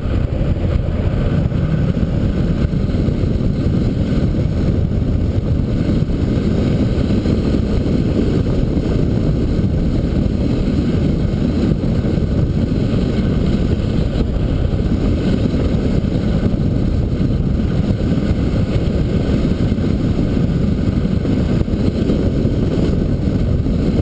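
Steady low rumble of a car driving at an even speed on a paved road, picked up by a camera mounted outside on the hood, with wind on the microphone and road noise.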